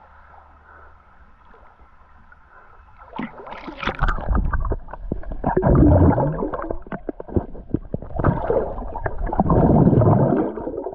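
Muffled bubbling and gurgling of water heard with the microphone under the river surface, as air bubbles stream from a bather's face. It is faint for the first few seconds, then comes in loud, crackling gushes, strongest about six and ten seconds in.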